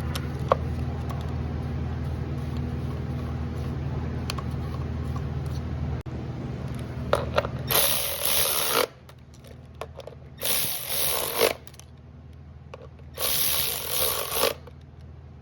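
A hand ratchet clicking in three spells of about a second each, from about halfway in, running down the bolts of the new ignition coils. A steady low hum runs under the first half.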